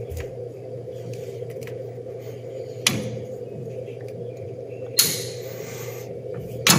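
Handle-driven tube-flaring tool working a 37-degree flare into a steel brake line: a sharp click about three seconds in, a short scraping hiss about five seconds in and another click near the end, over steady background music.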